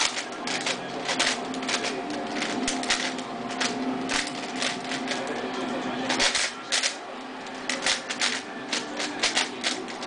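4x4x4 Rubik's cube being turned fast by hand, its plastic layers clicking and clacking in quick irregular flurries, with a brief pause about six seconds in.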